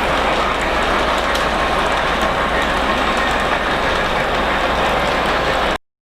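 Lionel O-gauge model train running on three-rail track: a steady rolling rattle of wheels and motor with a low hum. It cuts off abruptly near the end.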